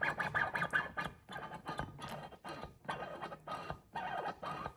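A new Porsche 911 timing chain tensioner being pumped up by hand in 0W20 oil, its plunger worked in repeated quick strokes with short pauses to bleed out air.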